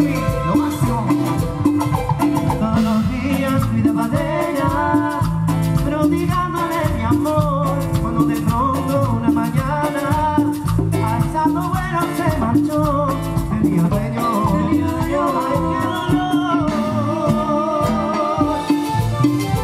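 Salsa music with a steady beat, a repeating bass line and percussion under melodic lines.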